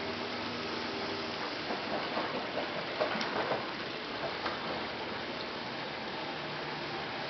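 Pool water splashing steadily as a small dog paddles through it, with a stream from a wall fountain spout pouring into the pool; a few sharper splashes about two to three and a half seconds in.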